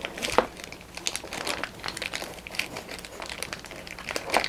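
Thin plastic bag crinkling and crackling as a hand microphone is worked out of it, in irregular crackles with a sharper one about half a second in.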